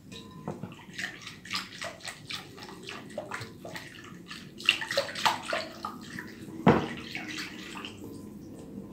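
Silicone whisk beating thin liquid in a glass bowl: quick irregular splashing and sloshing strokes, with a sharper knock against the bowl a little before the end.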